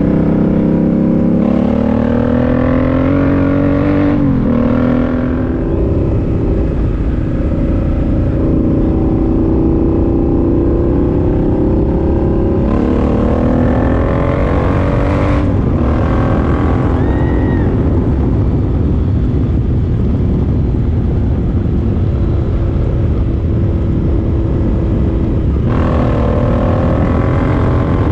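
Suzuki C50 Boulevard's V-twin engine through its Cobra exhaust, accelerating hard three times, about two, thirteen and twenty-six seconds in. Each time the engine pitch climbs and then drops at a gear change. In between it cruises steadily under a constant wind rush.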